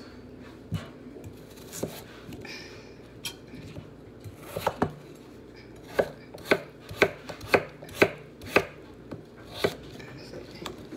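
Kitchen knife chopping peeled russet potatoes on a wooden cutting board: a few scattered knocks, then a run of about seven sharp chops, roughly two a second, starting about halfway through.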